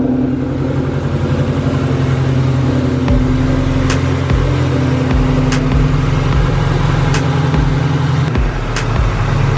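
Ford Mustang engine running steadily after a long lay-up, with a light sharp click about every second and a half.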